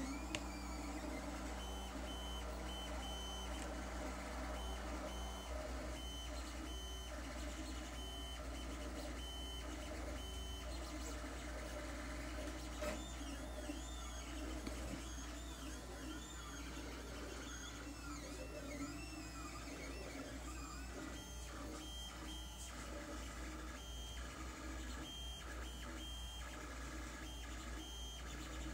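Lulzbot TAZ 3 3D printer printing: its stepper motors whine in short on-and-off tones and quick rising and falling glides as the print head and bed move, over a steady low hum.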